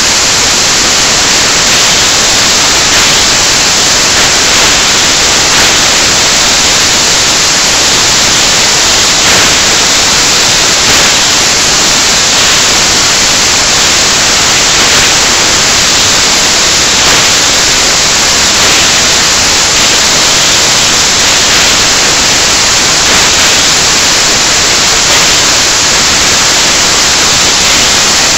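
Loud, steady static hiss covering the recording, with no clear music or voices standing out above it.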